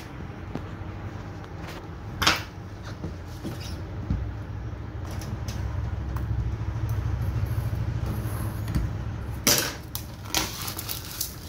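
Plastic shrink-wrap on a tablet box being slit and peeled by hand, with crinkling and a few sharp clicks and knocks: one about two seconds in and a louder pair near the end. A steady low hum runs underneath.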